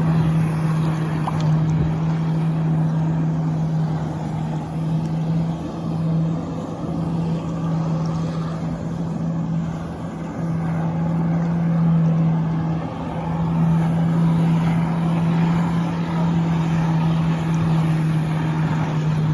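Jet ski engine held at steady high revs to drive a flyboard's water jets through its hose: a steady drone at one pitch, dipping slightly in loudness now and then, over a rushing noise of water spray.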